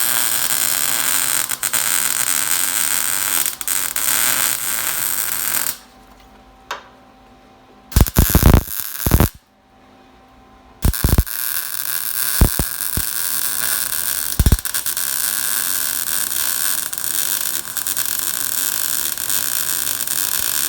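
MIG welder arc crackling steadily as a patch plate is welded onto a truck frame, stopping for a few seconds midway, when there are a few loud knocks, then welding on again.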